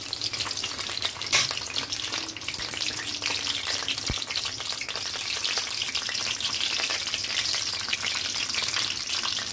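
Mustard seeds sizzling in hot oil in a kadhai, a steady high hiss full of small crackles, with one sharper click about one and a half seconds in.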